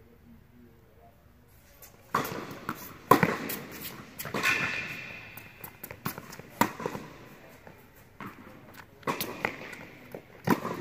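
Tennis ball struck by rackets and bouncing on an indoor hard court during a rally, a string of sharp pops echoing in the hall, with a brief squeak about four seconds in.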